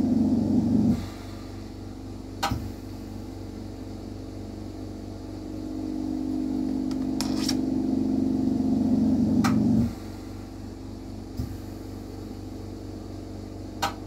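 Steady motor hum that drops back sharply about a second in, swells up again over several seconds, and cuts back sharply again near ten seconds. A few short sharp clicks fall across it.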